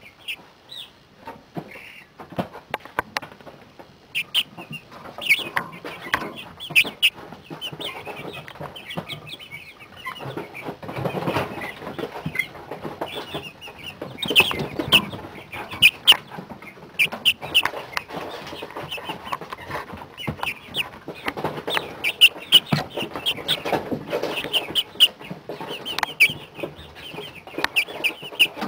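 A brooder full of 40-day-old chicks peeping, chirping and clucking, with many short high calls. Scattered short sharp clicks run through it.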